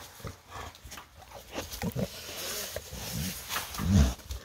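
American Bully dog making short, low-pitched vocal sounds right up against the phone, several in the second half and the loudest about four seconds in, with rustling as the phone rubs against the dog.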